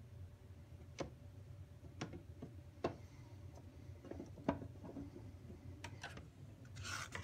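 Phillips screwdriver and screws clicking against the hard plastic lid of a mobility-scooter battery pack as the lid screws are put in: single sharp clicks about a second apart over a low hum, with a brief scraping rustle near the end.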